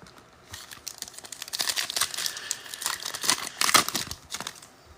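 Foil wrapper of a trading-card pack crinkling and tearing as it is opened by hand.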